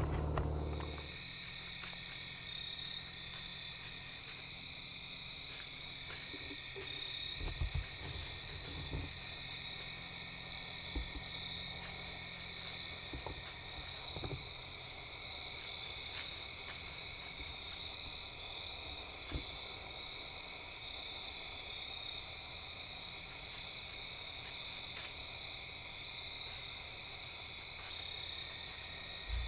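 Steady night chorus of calling insects and frogs, a continuous high trill at two pitches, with a few faint low bumps near the start and middle.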